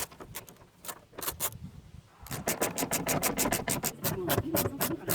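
Seat belt webbing and its metal hardware being worked out of the belt assembly: a few sharp clicks and rattles, then from about two seconds in a quick, irregular run of clicking and rubbing as the belt is pulled through.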